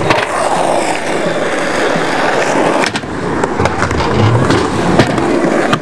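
Skateboard wheels rolling over asphalt, with a few sharp clacks of the board near the start, about three seconds in and about five seconds in.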